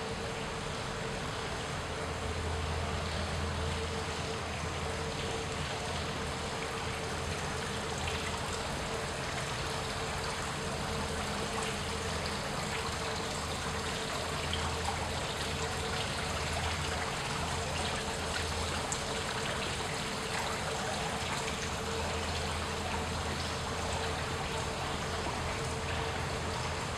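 Small fountain trickling steadily, with a constant low hum and a steady mid-pitched tone underneath.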